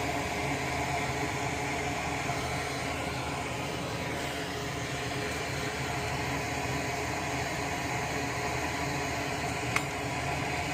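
Steady, even whir of a small fan or motor, with one sharp click near the end.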